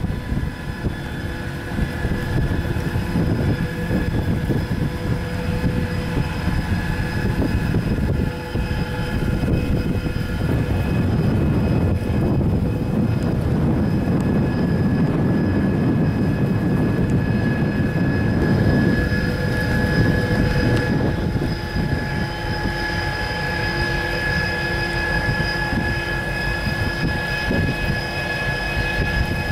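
Towboat's diesel engines running steadily as it pushes a string of barges, a constant drone with a high whine that grows stronger in the second half.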